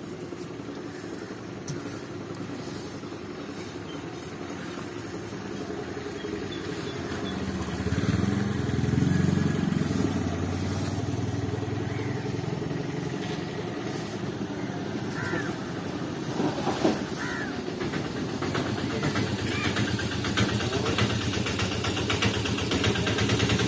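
A motor vehicle's engine running, swelling loudest about eight to ten seconds in, then easing back to a steady drone.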